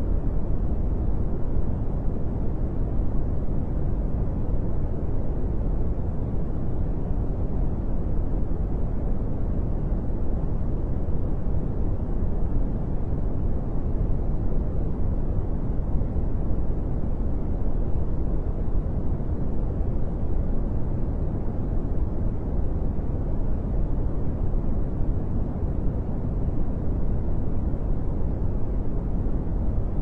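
Steady brown noise: an even, deep rushing hiss, strongest in the bass with little treble, unchanging throughout.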